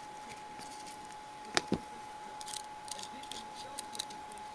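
Trading cards and their foil pack wrapper being handled: two sharp taps about a second and a half in, then a run of small clicks and rustles. A faint steady high whine runs underneath.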